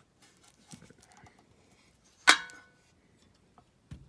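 Faint handling clicks and rustles, then one sharp, loud clank that rings briefly a little over two seconds in, and a soft thump near the end.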